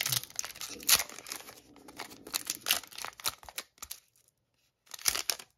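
Foil wrapper of an Upper Deck hockey card pack being torn open and crinkled by hand: crackling rustles with a sharp tear about a second in. Near the end it falls still for about a second, then there is one more short rustle.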